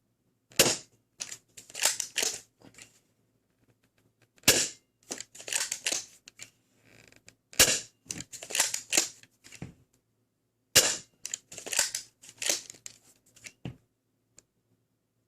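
Dart Zone Pro Mk2 spring-powered foam dart blaster, fitted with an extended brass barrel, fired four times about three seconds apart. Each sharp shot is followed by a second or so of plastic clacks and rattling.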